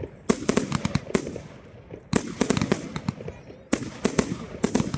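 Fireworks display: aerial shells bursting overhead with sharp bangs, going off in three rapid volleys of several reports each.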